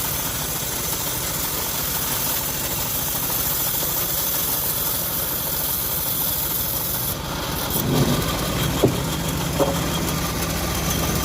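Engine of a homemade bandsaw sawmill running steadily. About seven seconds in the sound shifts, and a couple of sharp knocks follow.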